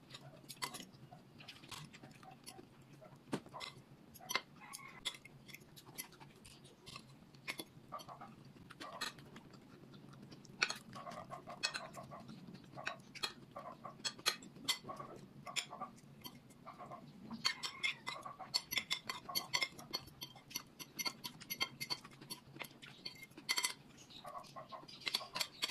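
Metal spoon and fork clinking and scraping against a ceramic plate while eating, a run of short sharp clicks that grows busier in spells past the middle and near the end.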